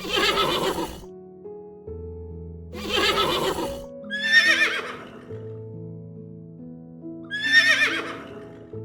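A horse whinnying four times, each call about a second long with a quavering, trembling pitch, over background music of held notes.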